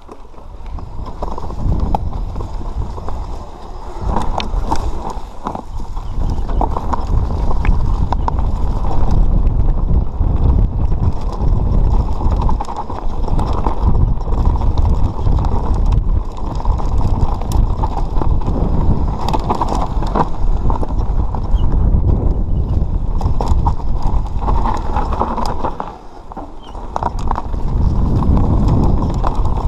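Mountain bike descending a rough dirt trail: a loud, dense rumble of tyres and wind on the microphone, with frequent rattles and knocks from the bike over the ground. It eases off briefly near the end before picking up again.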